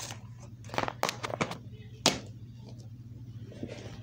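Plastic DVD cases being handled, with a few light clicks and taps in the first half and one sharper click about two seconds in, over a steady low hum.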